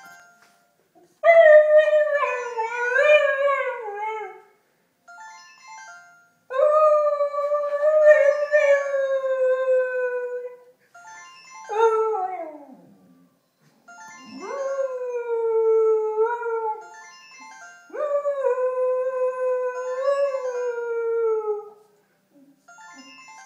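Small shaggy dog howling along to a ringing telephone: five long, wavering howls a few seconds each, the third one shorter and falling in pitch.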